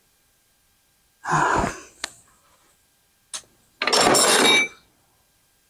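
A metal rail and straightedge being handled on a plywood sled base: two short scraping bursts, each about half a second, with a couple of sharp clicks between them.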